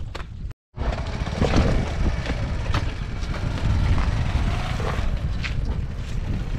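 Wind buffeting the microphone, a steady low rumble with a few sharp clicks. The sound cuts out completely for a moment about half a second in.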